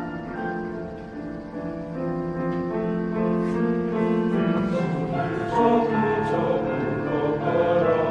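Male-voice choir singing sustained chords in parts, with piano accompaniment, growing louder over the passage.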